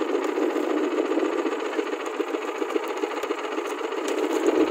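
Small boat engine running steadily with a fast, even chugging.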